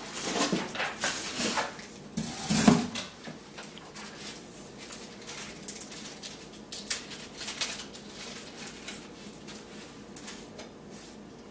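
Irregular clattering, clicking and rustling of hard parts and packaging being handled as a wine rack is unpacked, with one louder knock about two and a half seconds in and sparser clicks after.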